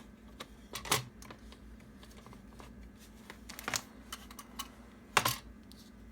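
Clicks and clacks from a plastic POG milkcap maker as it is pushed down and twisted, with three louder clacks about a second in, past halfway and near the end.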